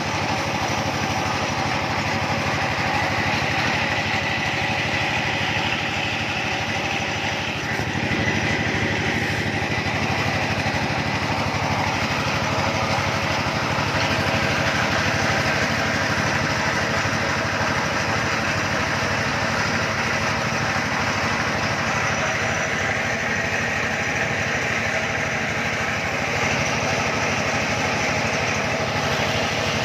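Small engine of a well-drilling rig running steadily.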